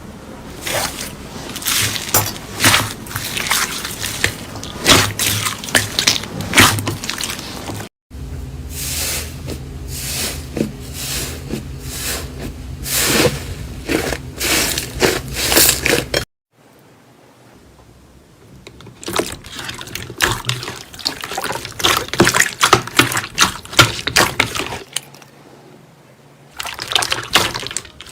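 Slime being squished and pressed by hand: a dense run of short wet clicks and sticky pops, with a quieter stretch about halfway through.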